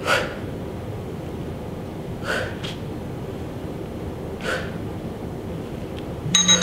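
A woman's short, forceful exhalations through the mouth as she lifts into abdominal crunches, a breath about every two seconds. Near the end an electronic beeping starts.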